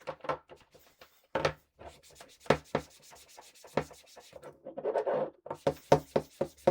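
Cleaning wipe rubbing and scrubbing over a laptop power adapter, in quick irregular strokes with small knocks as it is handled.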